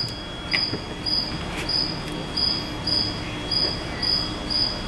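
Cricket chirping in an even rhythm, short high chirps about every half second or so, with a few faint clicks.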